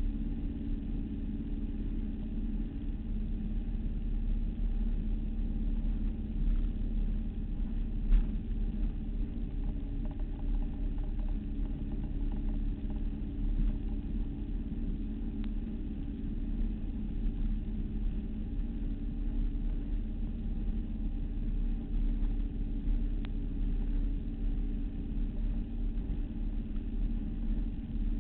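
Motorboat engine running steadily under way, a low droning rumble mixed with water rushing past the hull, with one brief thump about eight seconds in.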